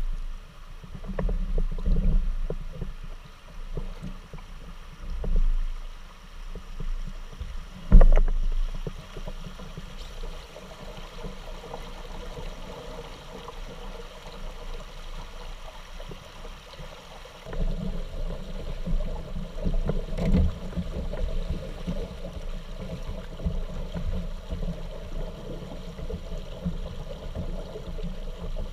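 Shallow creek water splashing around a plastic kayak, with irregular knocks and thumps on the hull and one sharp knock about eight seconds in. Later a steady rush of water moving through a riffle takes over.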